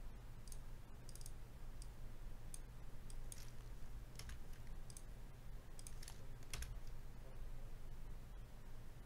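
Faint, irregular clicks from a computer mouse and keyboard being worked at a desk, over a low steady hum.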